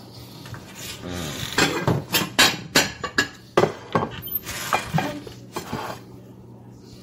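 Dishes and cutlery clattering: a series of sharp clinks and knocks as a plate is picked up and handled on a kitchen counter.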